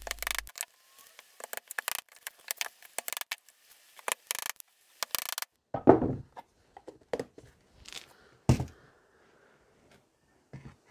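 Claw hammer tapping small nails into thin wooden strips on a plywood board: a quick, uneven run of light strikes, then a few separate louder knocks and thuds of handling on the board.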